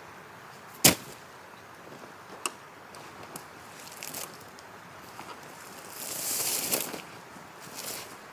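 A sharp knock about a second in and a lighter click a little later, then a rustling scrape near the end.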